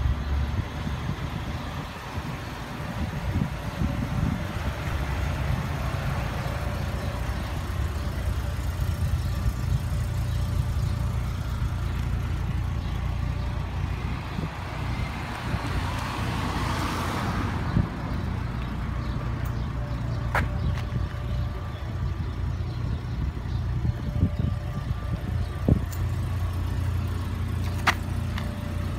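Car engine running steadily with a low hum. A louder whooshing swell rises and fades about halfway through, and a few sharp clicks come near the end.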